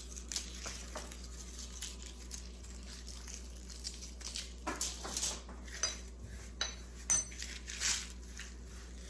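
Kitchen dishes and utensils being handled: scattered clinks and light knocks, a few with a short ring, over a steady low hum.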